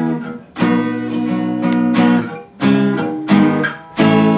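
Steel-string acoustic guitar strumming chords, about five sharp strums each left to ring for a moment before the next.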